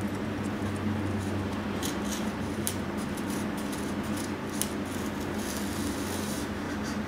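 Pencil scratching and rubbing along the edge of a foam pattern as it traces onto a rigid insulation-foam block, with a few small clicks, over a steady low hum.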